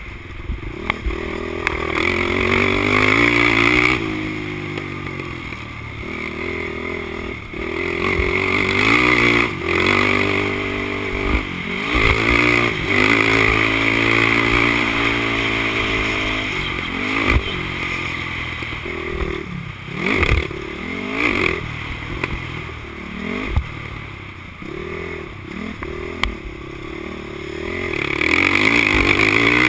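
Honda TRX450R quad's single-cylinder four-stroke engine under hard riding. The revs climb and fall over and over as the throttle is opened and shut, with brief drops between pulls. Short knocks and clatter from the machine come in over the bumps.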